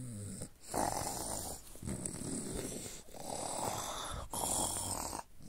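A person making pretend snoring sounds: four breathy snores of about a second each, one after another.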